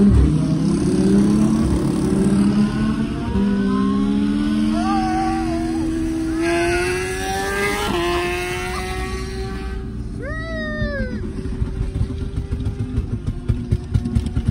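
Lamborghini Huracán's V10 heard from inside the cabin under hard acceleration: the engine note climbs, drops at a quick upshift just after the start and again about three seconds in, then climbs more slowly and settles into a steady cruise for the second half.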